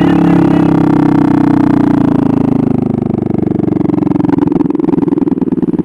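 Motorcycle engine whose steady note sinks slowly in pitch as the revs drop, then settles into a rapid, pulsing idle about halfway through.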